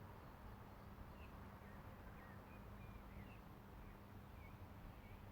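Near silence: a faint outdoor background with a few distant bird chirps and a low steady hum.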